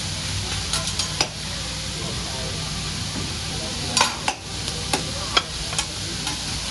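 Shrimp, scallops and vegetables sizzling on a hibachi steel griddle, with metal utensils clicking and scraping against the plate: a few sharp clicks about a second in and a quick run of them from about four seconds in.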